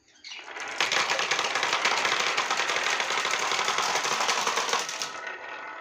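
Dozens of glass marbles rolling together down wavy grooves cut in wooden planks and dropping into toy truck beds: a dense, rapid rattling clatter. It starts suddenly about half a second in and thins out near the end as the last marbles arrive.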